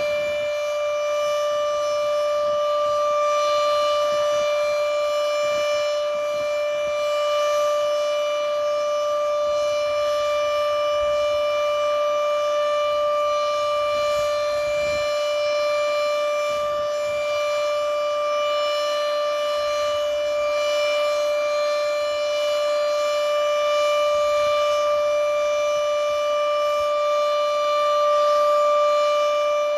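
Outdoor warning siren sounding a steady tone during a siren test, holding one pitch without rising or falling, with its loudness swelling slightly every few seconds.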